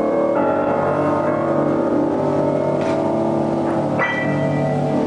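Music of held, sustained chords, with a new chord starting about half a second in and another about four seconds in.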